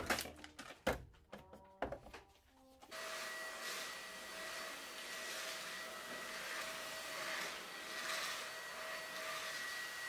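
Glass bottles knocking and clinking against a refrigerator door shelf. About three seconds in, a corded stick vacuum cleaner starts up and runs steadily with a whining motor hum.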